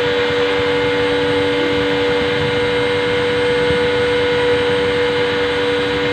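High-speed rotary tool used as a DIY CNC router's spindle, running with a steady whine while its engraving bit cuts into MDF.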